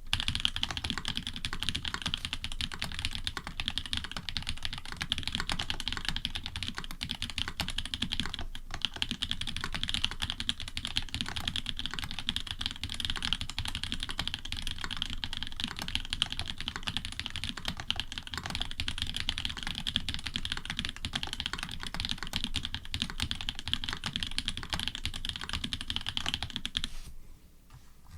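Fast, continuous typing on an Orion v2.5 custom mechanical keyboard. It is fitted with hybrid switches (Cherry bottom housings with Cream tops and stems), an FR4 plate with plate foam, and GMK keycaps. The keystrokes come in a dense stream that stops about a second before the end.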